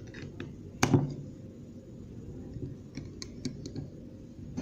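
Metal clicks and taps of snap ring pliers and a snap ring being worked into the groove on an AC compressor, with one louder metallic knock about a second in and a run of lighter clicks later.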